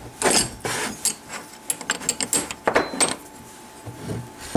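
Handling noise on a workbench: an aluminium engine-mount bracket and paper drawings being moved, a run of quick clicks, taps and rustles for about the first three seconds, then a couple of lighter knocks near the end.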